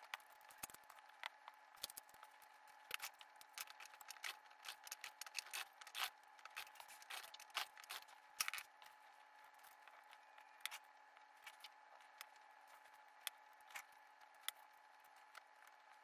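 Faint clicks and taps of hands setting down wooden strips, pins and metal cans on a work board. They are busiest in the first half and thin out after about nine seconds, over a faint steady hum.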